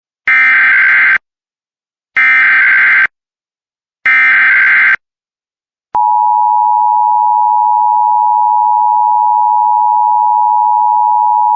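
Emergency Alert System header for a required monthly test: three one-second stretches of rapid warbling data tones, each about a second apart, carrying the coded alert. About six seconds in, the steady EAS attention tone starts and holds.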